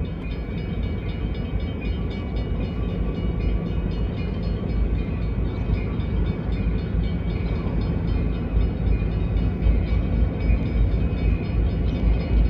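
Freight train led by EMD diesel locomotives running past, a steady low rumble that grows slightly louder near the end.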